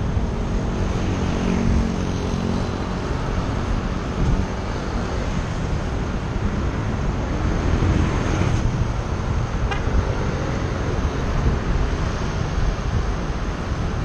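Steady wind rush on a helmet-mounted action camera's microphone while cycling, over city road traffic. A vehicle engine's hum stands out for the first few seconds.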